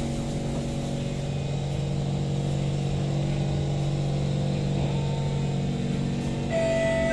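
Kawasaki Heavy Industries C151 metro car pulling out of a station and gathering speed: a steady hum under a fast, rough thumping from flat spots on the wheels, bad enough to drown out the traction motor. A set of steady tones joins about six and a half seconds in.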